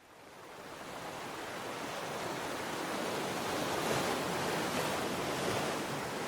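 Steady rushing wash of wind and water, fading in over the first couple of seconds.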